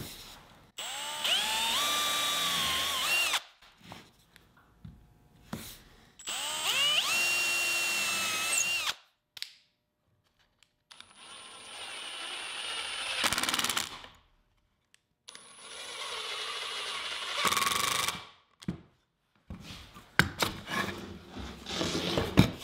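Cordless drill boring two holes into plywood with a combined pre-drill and countersink bit, each a couple of seconds of motor whine that rises and falls in pitch. Then two screws are driven into the countersunk holes with a cordless driver, each run a few seconds long and louder as the screw seats.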